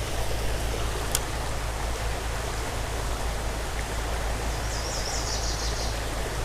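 Small creek flowing steadily, a constant rush of running water. A single sharp click comes about a second in, and a short high twitter near the end.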